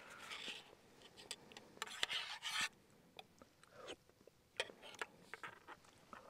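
Faint scraping and light clicks of a spoon working thick oatmeal in an insulated mug, with the loudest rasping scrape about two seconds in.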